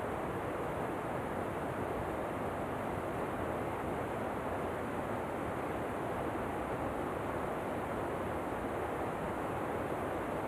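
Steady, even rush of falling water, with no change or separate splashes.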